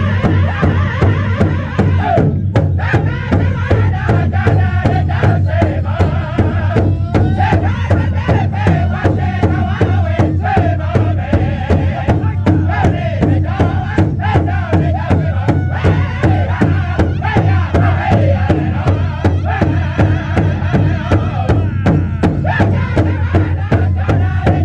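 Powwow drum group singing in unison while several drummers beat a single large bass drum together in a steady, even beat.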